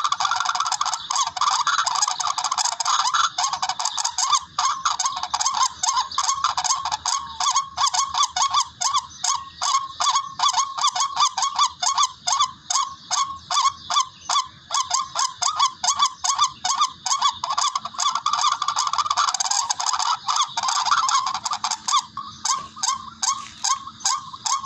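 Recorded rail calls (tikling), a harsh honking call repeated rapidly, several times a second, played back as a lure for bird hunting.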